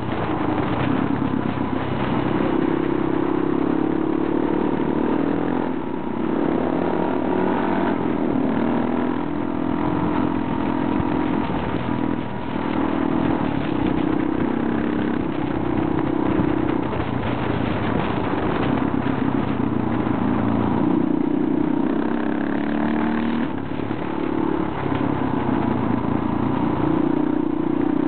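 Motorcycle engine running under way, heard from on board the bike, its note rising and falling with the throttle and dipping briefly a few times, over tyre and wind noise on a gravel road.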